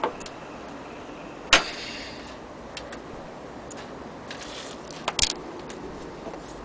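Antique hand-crank gramophone with a tin horn, its record finished: a steady hiss with scattered sharp clicks, the loudest about a second and a half in and a quick cluster of clicks a little after five seconds.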